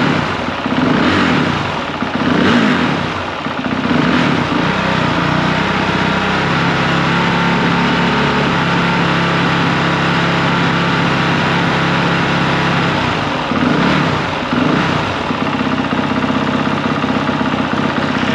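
Honda CRF450R dirt bike's single-cylinder four-stroke engine, warming up, revved in three short blips. It is then held steady at a fast idle of about 2,000 rpm for several seconds, blipped twice more, and settles back to idle.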